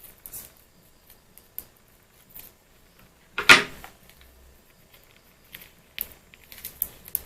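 Scattered small clicks and handling noises from preparing instant noodles by hand, with one louder short clatter about three and a half seconds in.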